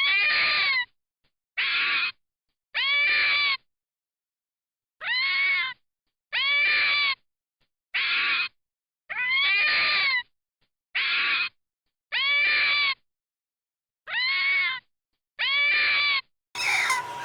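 Domestic cat meowing over and over, about a dozen separate meows, each rising then falling in pitch, with silent gaps between them.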